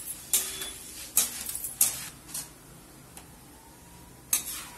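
A perforated metal ladle clinking against a metal kadai and strainer bowl while fried flattened rice is scooped out of the oil: about five sharp metal clinks at irregular intervals, the last near the end.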